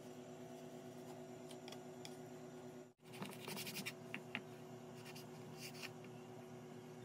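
Kitchen knife scraping and slicing raw fish flesh on a wooden cutting board: faint scratchy strokes, most of them in the second half, over a steady low hum.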